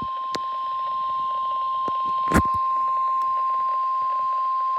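NOAA Weather Radio 1050 Hz warning alarm tone: one steady high tone held without a break, the signal that a warning message is about to be read. Two short clicks of static break in, about a third of a second in and, louder, about two and a half seconds in.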